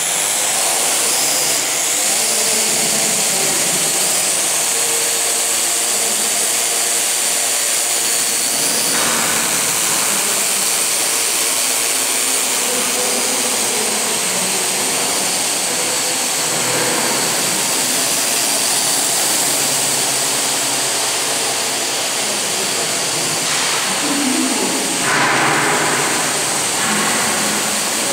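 Small electric quadcopter's motors and propellers whirring steadily as it hovers under PID position control, the motor pitch wavering as the controller corrects its position. Briefly louder a few seconds before the end.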